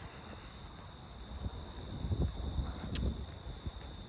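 Crickets trilling steadily and high-pitched in the background, with a few soft low bumps and one sharp click about three seconds in.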